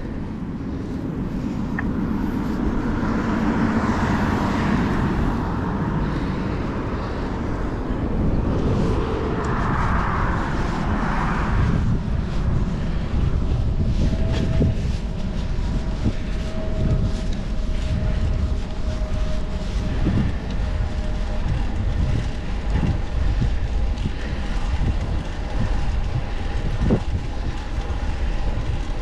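Wind rumbling on the microphone of a camera on a moving bicycle, with road traffic passing. Two vehicles swell up and fade in the first twelve seconds.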